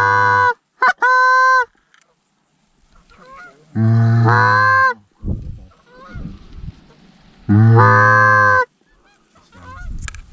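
Canada goose honking: four loud, drawn-out honks, at the start, about a second in, about four seconds in and about eight seconds in, with fainter calling between them.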